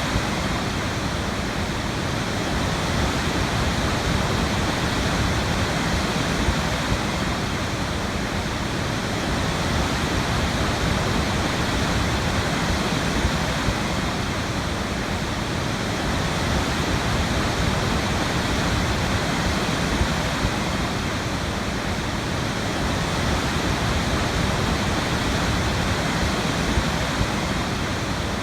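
Waterfall: a steady, unbroken rush of falling water, heaviest in its deep low rumble.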